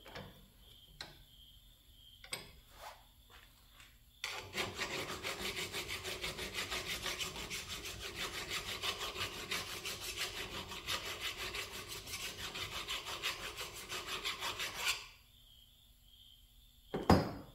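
Half round file rasping back and forth inside a drilled and tapped hole in round stock, deburring it, in quick even strokes of about four to five a second. The filing starts about four seconds in and stops about four seconds before the end. A few light clicks come before it, and one sharp knock comes near the end.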